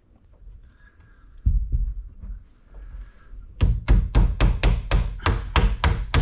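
Claw hammer tapping a glued wooden spline into the corner joint of a clamped door frame: a quick, even run of sharp knocks, about four or five a second, starting a little past halfway.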